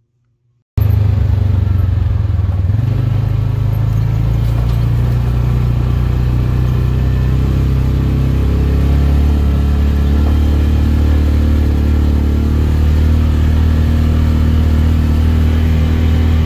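The engine of a small off-road vehicle, an ATV or side-by-side, runs steadily and loudly while driving along a dirt track. The engine note shifts slightly a couple of times.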